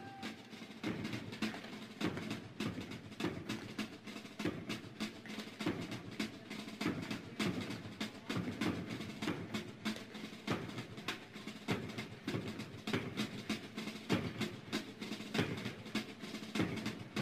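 Snare drum playing alone, a steady drum cadence of quick strokes and rolls with accents about once a second, as the quiet intro to a song.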